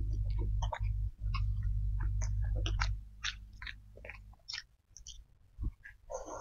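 Close-miked chewing of a mouthful of rice and stir-fried greens: wet mouth clicks and smacks, with a deep low rumble under the first three seconds.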